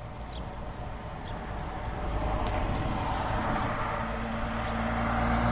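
Scania truck approaching along the road, its engine and tyre noise growing steadily louder; a steady engine hum comes in over the second half.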